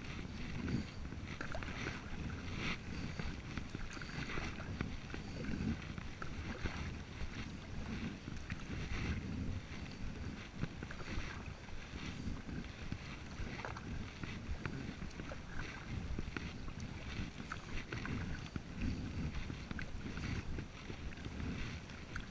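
Double-bladed kayak paddle stroking through calm water on alternating sides, a splash and trickle of drips about every second and a half, with wind rumbling on the microphone.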